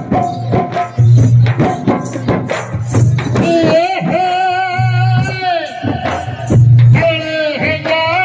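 Rajasthani folk music: drums and percussion beating steadily, with a deep drum sounding in regular pulses, and a singer coming in about three and a half seconds in with long, wavering held notes.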